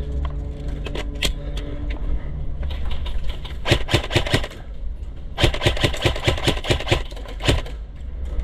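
Airsoft rifle firing rapid strings of shots, in two runs: one about three seconds in and a longer one from about five and a half to seven and a half seconds, over a steady low rumble.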